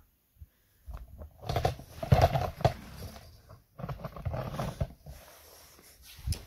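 Irregular knocks and scuffing as a wooden workbench top and its metal frame are handled, in two busy spells with a sharper knock near the end.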